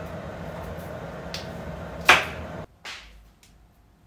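Kitchen knife chopping potato on a cutting board: three sharp knocks, the loudest about two seconds in. A steady low hum runs underneath and stops suddenly shortly after the loudest knock.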